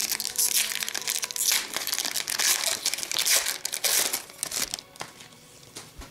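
Plastic foil wrapper of a 2016-17 Upper Deck Series One hockey card pack crinkling and crackling as it is handled and opened. It dies down after about four and a half seconds.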